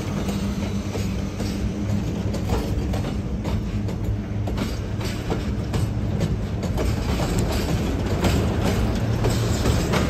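Freight wagons of a departing train, boxcars and then tank cars, rolling past at close range: a steady low rumble with irregular clicks of the wheels over the rail joints.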